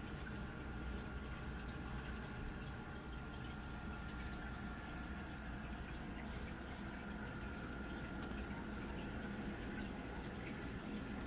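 Reef aquarium water circulating: a steady trickling and dripping of water from the tank's filtration, with a faint steady high tone and a low hum under it.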